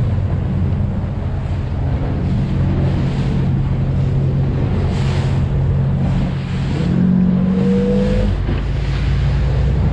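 Speedboat engine running hard at speed, with water rushing and the hull slapping through spray; the engine note climbs briefly about seven seconds in.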